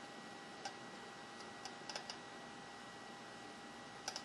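Small scattered clicks and ticks of a metal pick and soldering iron tip working under the pins of a flat-pack chip on a circuit board, prying it up, with a few clicks close together near the end. Under them runs a steady faint hiss with a thin high whine.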